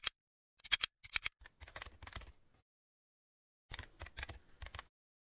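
A few computer mouse clicks, then two short runs of keyboard typing with a pause between them.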